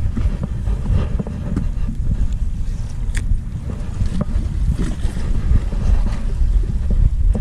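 Wind buffeting the camera microphone: a steady, uneven low rumble, with a short sharp click about three seconds in.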